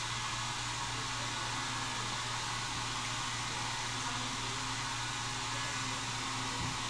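Steady whooshing hiss of a hair dryer running in the background of a hair salon, with a low hum underneath.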